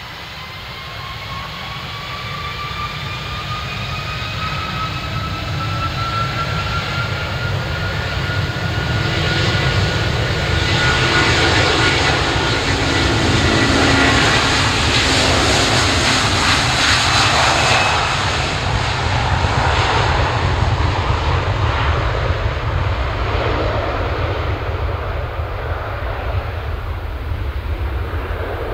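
Air Transat Airbus A330's twin Rolls-Royce Trent 700 turbofans spooling up to takeoff power with a rising whine, then a loud jet roar as the airliner accelerates past on its takeoff roll, easing off as it rolls away down the runway.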